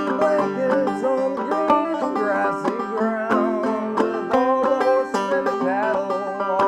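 Clawhammer banjo played in a steady, plucked rhythm, with a man's voice singing a slow melody over it.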